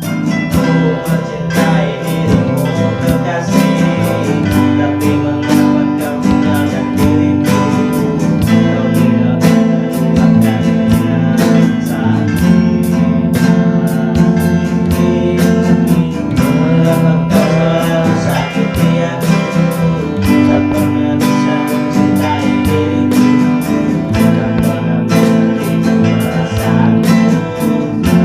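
Acoustic guitar strummed in steady chords while a man sings along, a simple guitar-and-voice pop song cover.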